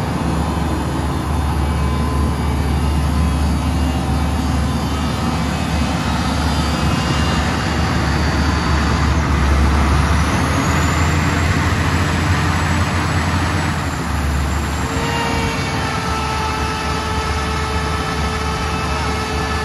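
2005 Sullair 1350 x 350 portable air compressor's diesel engine running steadily with a deep hum. About nine seconds in, a hiss with a high whistle rises and holds for some four seconds; after it fades, a steadier mid-pitched tone sets in.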